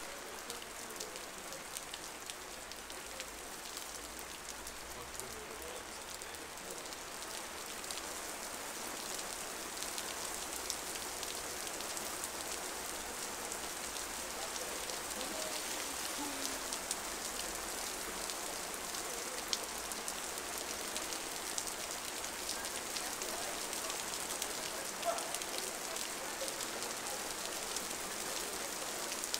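Downpour on a city street: a steady hiss of rain, dotted with the sharp ticks of single drops hitting hard surfaces. It gets a little heavier about a third of the way in.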